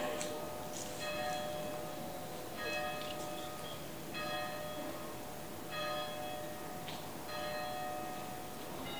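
Church bell ringing in slow, evenly spaced strokes, one about every second and a half, each note ringing on between strokes.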